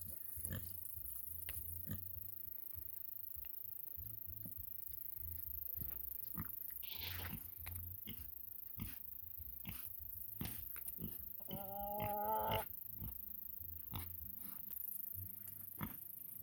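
Pigs and piglets feeding and moving about, with many scattered short clicks and snuffles. About three quarters of the way through, one pitched call lasting about a second, the loudest sound.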